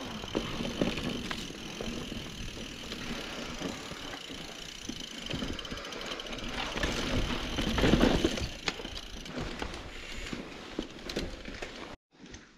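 Mountain bike riding down a dirt trail: tyres on dirt, with the chain and frame rattling and clicking over the bumps and a louder bump about eight seconds in. The sound cuts off abruptly near the end.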